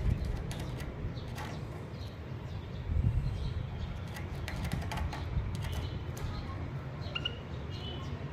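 Caged canary and white-headed munia moving about: scattered light clicks and taps, with a few short high chirps about seven seconds in, over a low steady rumble.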